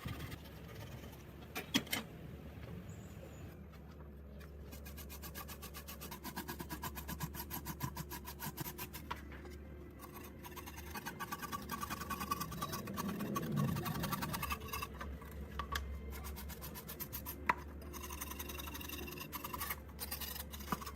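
Rapid, rhythmic scraping strokes on a rusted, pitted steel knife tang as the surface rust is scraped off, over a low steady hum.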